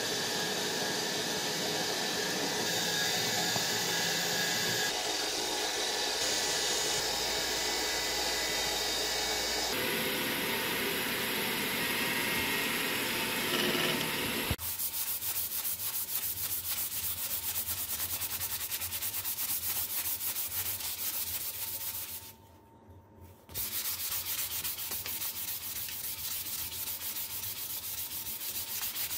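Tools scraping and cutting grooves into a wooden axe handle. About halfway through, this gives way to a belt sander running, with the wooden handle pressed against it and sanded, broken by a short pause near the end.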